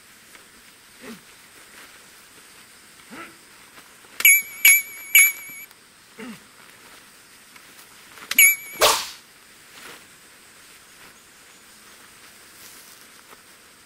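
Swords clashing: three quick metallic clangs with a ringing tone about four seconds in, then one more clang and a heavier, fuller hit a few seconds later.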